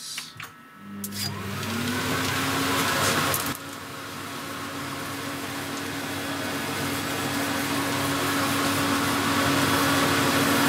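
Workshop vacuum starting up about a second in, its motor hum rising in pitch as it spins up, then running steadily with a hose sucking up fibreglass milling dust. The sound dips sharply about three and a half seconds in, then slowly builds again.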